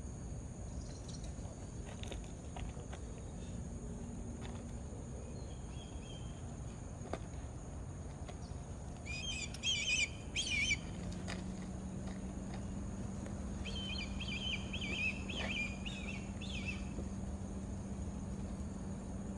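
Black kites calling overhead: two bouts of quavering, whistled calls, one about nine seconds in and a longer one around fourteen seconds in, over a steady high insect drone. A steady low hum begins about eleven seconds in.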